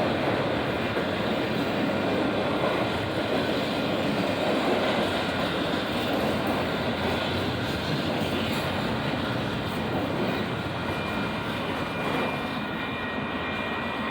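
Union Pacific intermodal freight train rolling past: a steady roar of wheels on rail that eases slightly over the last few seconds, with faint thin high tones coming in near the end.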